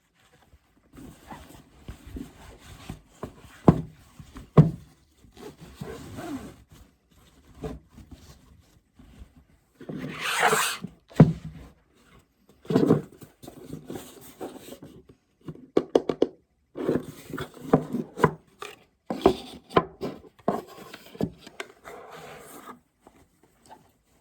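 Hands handling packaging and a bag during an unboxing: irregular rubbing and rustling with a few sharp knocks, and a louder rustle about ten seconds in.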